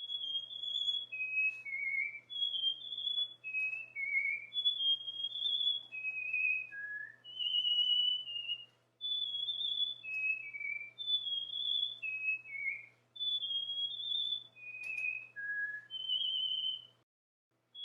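Cockatiel whistling its song: a phrase of clear, high notes that step up and down in pitch, sung through twice. There is a brief break near the end before the phrase starts again.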